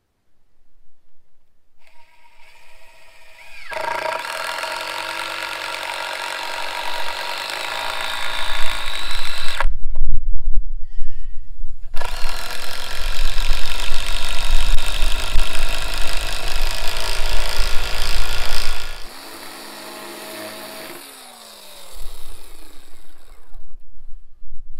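RYOBI One+ 18V cordless electric chainsaw cutting into pine trellis posts: the motor spins up, then bogs into two long stretches of cutting with a short pause between. Near the end the motor winds down with a falling whine and starts again.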